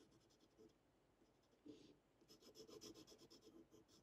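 Faint scratching of a graphite pencil's sharpened tip shading on a paper tile in quick short strokes, busiest in the second half.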